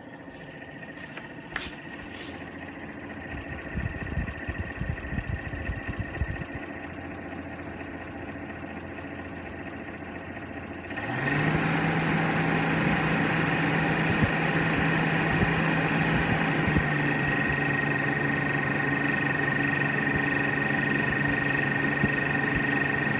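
Evaporative humidifier's fan running with a steady hum. About eleven seconds in it steps up to a louder, faster speed: the hum rises in pitch and settles, with a stronger rush of air.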